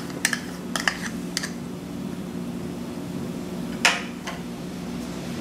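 A metal spoon clinking and scraping against a plastic tub and ceramic bowl several times as cream is spooned out, then one more clink about four seconds in. A steady low hum runs underneath.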